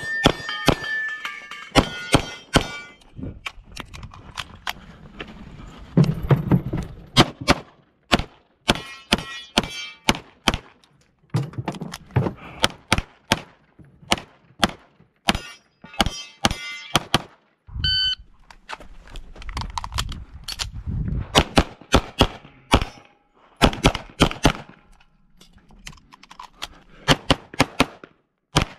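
CZ Shadow 2 pistol firing in pairs and quick strings of shots throughout, with steel targets ringing after hits in several strings.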